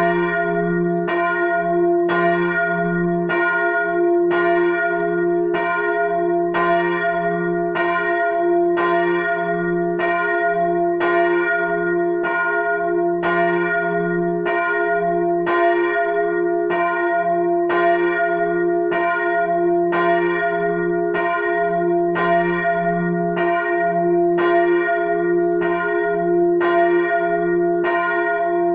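A large church bell, the great bell tuned to f', swinging and ringing alone, its clapper striking evenly about every three-quarters of a second over a steady low hum. It is rung as the call half an hour before a service.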